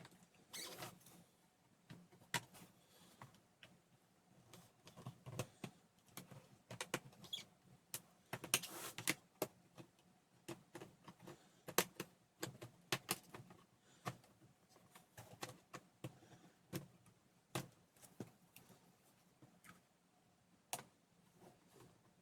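Plastic bottom cover of a Lenovo IdeaPad 330 laptop being pried off: irregular small clicks and scrapes as its clips come loose, with a denser cluster about nine seconds in.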